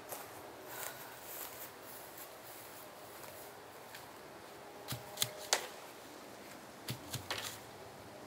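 Dry coconuts knocking and rustling against each other as a heap of them is rummaged through by hand, with a few sharp knocks about five seconds in and another cluster about seven seconds in.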